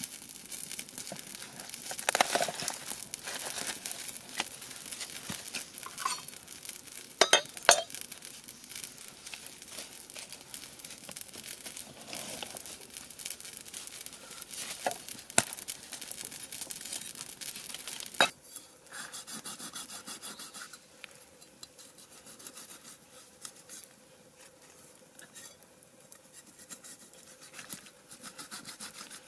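Handling sounds of food preparation on a wooden cutting board: irregular knocks, clicks and scrapes, with sharp knocks about 7 and 18 seconds in. After that the sounds become quieter and sparser.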